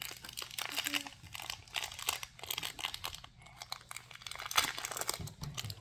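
Crinkly plastic packaging of a Disney Doorables mystery toy crackling and tearing as it is handled and opened, in dense, irregular crackles.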